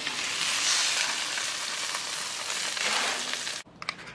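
Monkfish fillet sizzling on a hot griddle pan as a metal spatula lifts it off. The sizzle cuts off abruptly near the end, followed by a few faint clicks.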